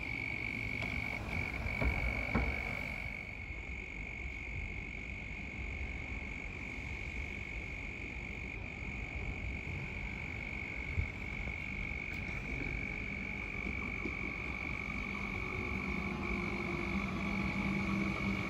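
A steady, high-pitched trilling chorus of calling frogs runs throughout. From about two-thirds of the way in, the low hum of an approaching Comeng electric suburban train grows louder, with a slowly falling motor tone near the end.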